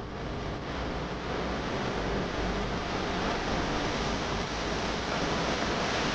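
Steady rushing noise with no distinct events, growing slightly louder toward the end.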